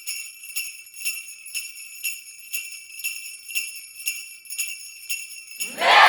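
Sleigh bells jingling in a steady rhythm, about two shakes a second. Near the end a loud, rough burst of sound starts over them.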